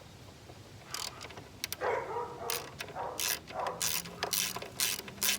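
Ratchet wrench with a 7/16-inch socket clicking in quick, even strokes, about three a second, working the nut on the engine's negative (ground) cable. Before the clicking starts there are a few metallic clinks as the socket is set on.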